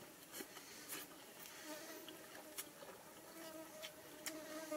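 An insect buzzing close by, a steady hum that comes in about a second and a half in, over scattered clicks and crunches of someone chewing a lettuce wrap.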